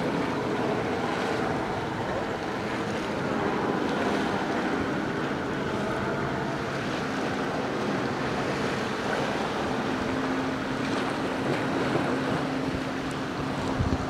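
Water rushing and splashing around a moving boat, with wind buffeting the microphone and a steady engine hum underneath; a lower steady hum comes in about two-thirds of the way through.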